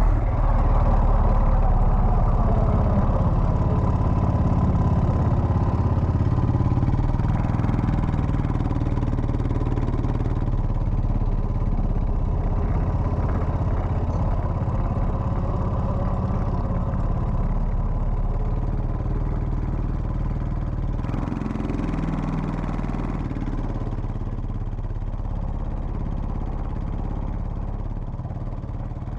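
Quad bike engine running steadily while riding over sand, with a dense low drone that slowly gets quieter.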